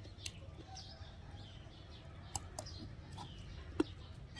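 A metal spoon clicks sharply against a ceramic bowl a few times, the loudest near the end, as a young-mango salad is eaten and chewed. Faint bird calls sound in the background.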